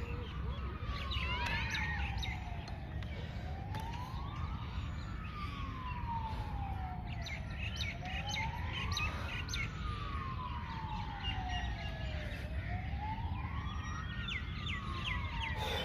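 Siren wailing, its pitch rising quickly and falling more slowly in a cycle that repeats about every four and a half seconds, with birds chirping.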